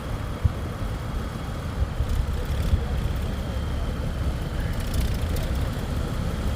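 Twin 200 HP Suzuki outboard motors of an 8.3 m catamaran ski-boat running at low revs as it holds off behind the surf, a steady low rumble.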